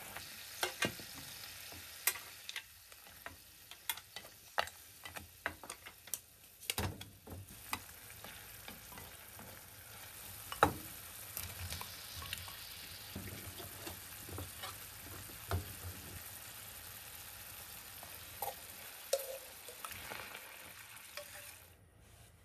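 Oil sizzling in a frying pan as mussels, seafood, garlic and chopped tomatoes cook, with scattered sharp clicks and knocks of utensils against the pan. The sizzle cuts off suddenly near the end.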